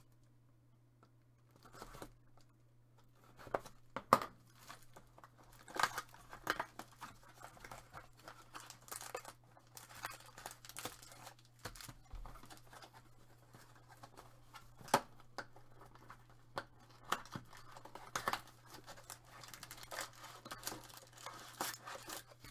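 Hands opening a cardboard trading-card box and handling foil card packs: scattered rustling, crinkling and tearing of cardboard and foil wrappers, with a few sharper clicks, the loudest about four seconds in and again near fifteen seconds.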